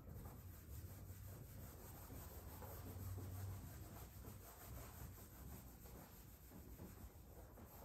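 Whiteboard eraser wiping across a whiteboard: a faint, steady rubbing.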